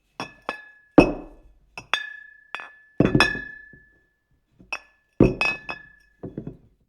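Glass Coke bottles clinking against each other, a dozen or so irregular knocks in small clusters, several ringing on briefly with a clear tone.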